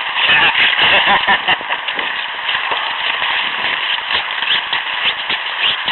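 Iceboat runners skating over the ice at speed, giving a loud, dense crackling and rattling.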